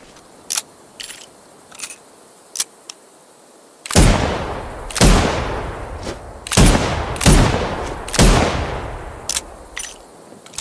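Taurus Tracker Model 44 .44 Magnum revolver fired five times, each shot with a long echoing tail. A few sharp clicks come before the shots and two more after them.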